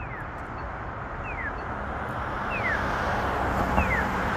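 Polara EN4 accessible pedestrian signal sounding its walk indication: a short falling chirp repeated about every 1.3 seconds, four times, over street traffic that grows louder toward the end.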